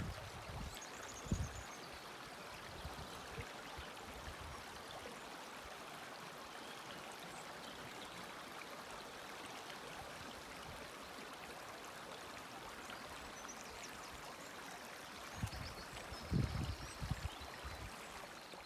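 Shallow, stony river flowing steadily over rocks, an even rushing of water. Short low thumps and rumbles break in about a second in and again near the end.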